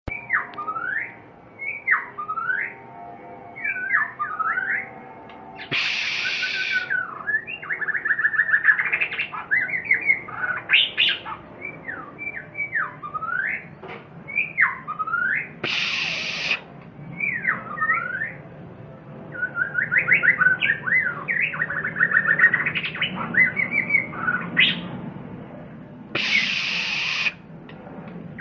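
White-rumped shama (murai batu) singing: loud whistled phrases that swoop down and back up, rapid chattering trills, and three harsh rasping notes about ten seconds apart.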